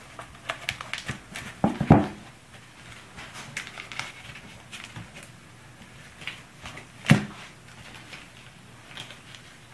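Peel ply fabric and blue painter's tape being handled and pressed down on a wooden workbench: light rustling and crinkling with small clicks, and two sharper knocks, about two seconds in and about seven seconds in.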